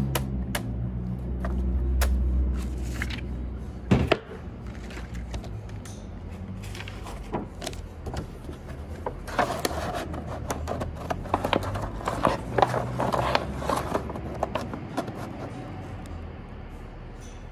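Wooden mallet knocking the copper magnet-wire coils of a 250 HP three-phase motor stator down into their slots during rewinding: a couple of light knocks at the start and one sharp knock about four seconds in. After that come scattered small clicks and rustling as the winding is handled.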